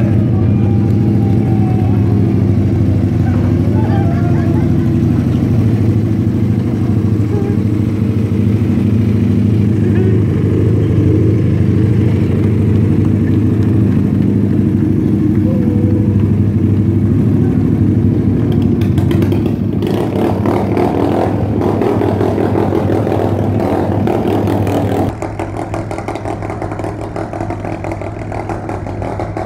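A motor vehicle engine running steadily, with a few faint gliding squeals early on. The sound changes abruptly and drops in level about 25 seconds in.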